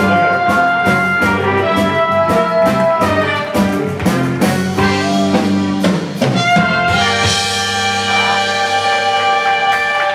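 A live band plays a pop-rock number with drums, electric guitar and brass. It ends on a long held chord over the last three seconds.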